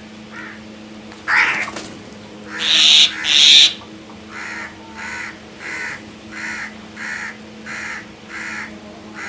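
Crows cawing. A sudden loud sound comes just over a second in, then two loud, harsh caws, then a steady run of evenly spaced caws, about three every two seconds.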